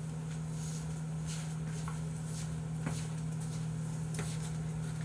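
A steady low hum, with a few faint rustles and clicks as a disposable plastic bib is pulled over the head and settled.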